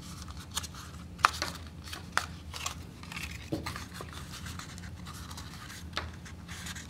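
Stiff cardstock being creased and handled by hand: scattered crisp clicks and rustles of the paper folding, over a faint steady low hum.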